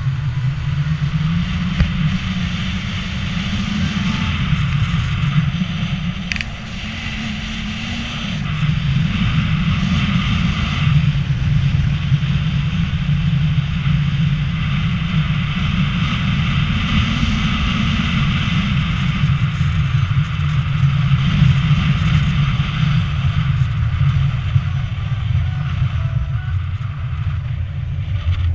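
2001 Honda Accord driving slowly, heard from a camera held outside the driver's window: engine and road noise with wind on the microphone. The low rumble swells and eases, dipping briefly about seven seconds in.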